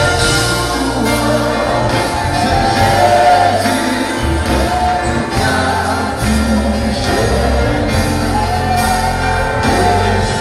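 Gospel worship song sung by many voices together, with band accompaniment and a bass line that moves every second or two.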